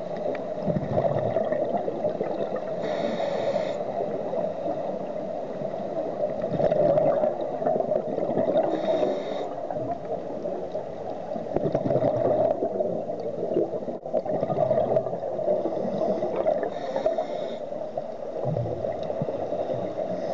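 Scuba regulator breathing heard underwater: three short hissing inhalations several seconds apart, with bubbling, gurgling exhalations between them.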